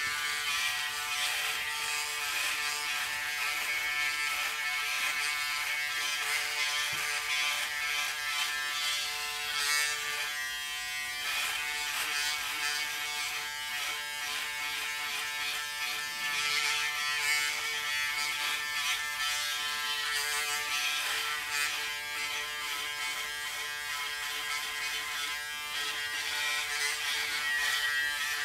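Braun Series 6 electric foil shaver running steadily as it is drawn over stubble on the neck and jaw.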